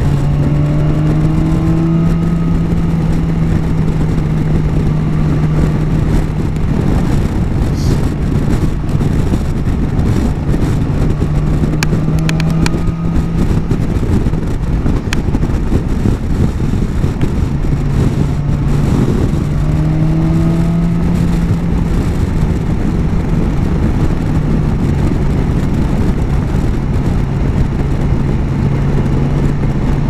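BMW S1000 XR's inline-four engine running at a steady cruise under wind rush. Its note rises a little about a second in and again around nineteen seconds in.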